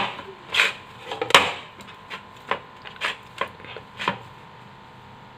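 A spoon knocking and scraping against a vessel while stiff cooked rice-flour dough is mixed, in irregular strikes that stop about four seconds in.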